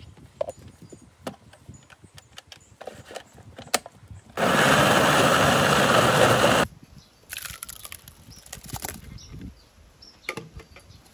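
Electric countertop blender running for about two seconds and grinding fresh red chillies into paste; it starts and stops abruptly. Small knocks and clicks of the jar and lid come before it.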